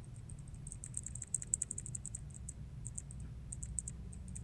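Blue mechanical keyboard switch being pressed and released over and over by hand, giving quick, light, high-pitched clicks in irregular bursts.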